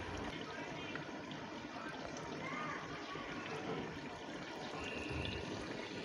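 Chicken curry simmering in a clay pot over a wood fire: a quiet, steady bubbling hiss.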